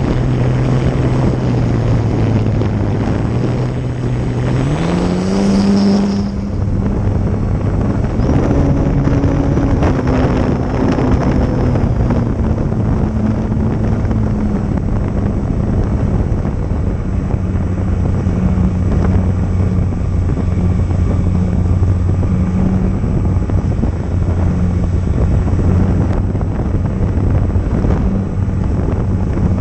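RC plane's motor and propeller droning, its pitch climbing about five seconds in as the throttle goes up, then easing down slowly, under a steady rush of wind noise.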